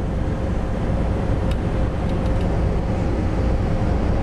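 Steady road and engine noise of a moving road vehicle, heard from inside the cabin: an even low rumble with a faint steady hum and a few faint ticks in the middle.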